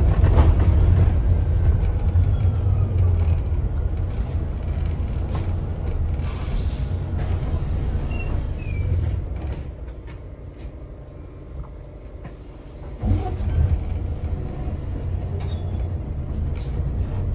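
Alexander Dennis Enviro400 MMC hybrid double-decker bus heard from inside the passenger saloon: a steady low rumble of drivetrain and road noise. About halfway through it fades for around three seconds, then comes back suddenly.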